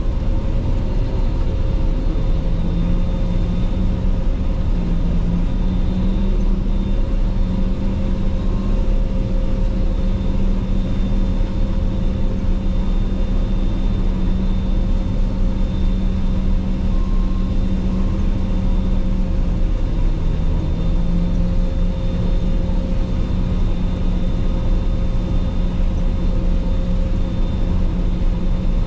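Claas Lexion 480 combine harvester running steadily: a constant low engine and machinery drone with a few steady tones over it. The main hum shifts slightly in pitch a couple of times.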